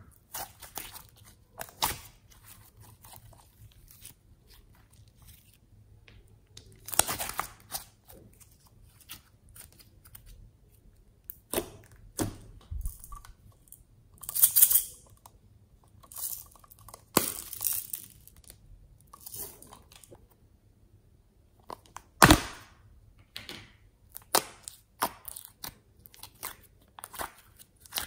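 Soft slime being squeezed, stretched and pulled apart by hand, giving irregular sticky crackling and tearing sounds, with a few louder bursts scattered through.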